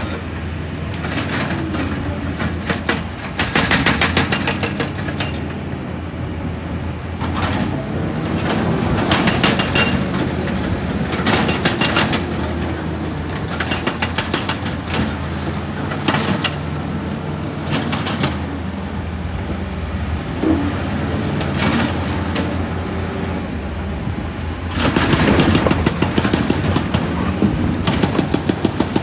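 Excavator engine running steadily under load, with repeated irregular clanks and knocks of rock and steel, and a stretch of rapid, evenly spaced knocking near the end.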